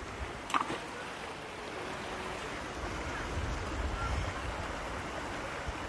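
Shallow stream running over a rocky bed: a steady watery rush, with a low rumble swelling in the middle.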